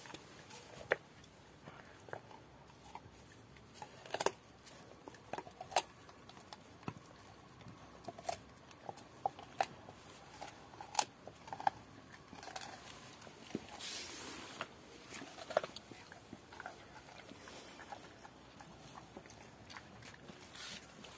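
Rottweiler gnawing a raw pork bone: irregular sharp cracks and crunches of teeth on bone, with a louder rasping stretch about fourteen seconds in.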